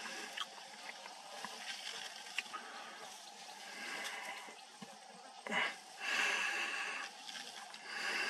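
African bush elephants feeding on grass close by: scattered snaps and crunches of grass being torn and chewed, with several short rushing noises, the longest lasting about a second just past the middle and another near the end.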